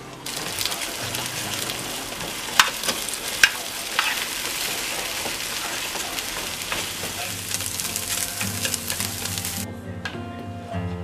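Beaten egg sizzling in a hot square tamagoyaki pan as it is stirred and scrambled with chopsticks, with a few sharp taps of the chopsticks against the pan. The sizzle cuts off suddenly near the end, leaving soft guitar music.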